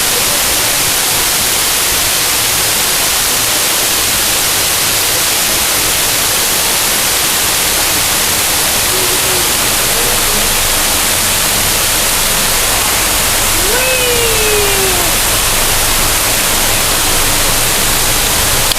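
Pool waterfall pouring down: a loud, steady rush of falling water. Faint voices call out briefly twice, about halfway through and again a few seconds later.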